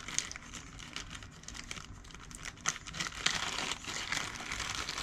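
Hands rustling and crinkling through small parts, with scattered light clicks, busier about three seconds in.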